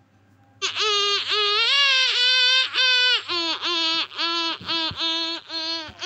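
A young child's high voice singing long held notes with short dips in pitch between them, starting about half a second in, played back from a WhatsApp voice message.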